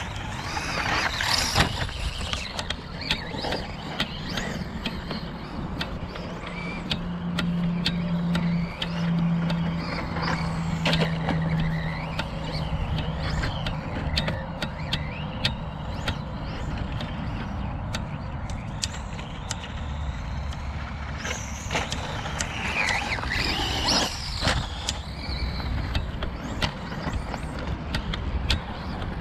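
Radio-controlled Traxxas Slash 2WD VXL trucks driving laps: their brushless electric motors whine, rising and falling in pitch as they speed up and slow down, over a steady noise. Many short, sharp clicks and knocks run through it.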